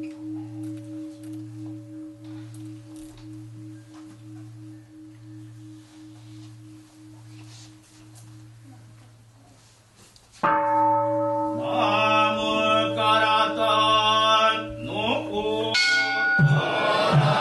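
A deep temple bell is struck once. Its low tone wavers slowly and rings out over about ten seconds. It is struck again about ten seconds in, this time with a cluster of higher sustained tones, and near the end a louder, busier passage with quick low thumps takes over.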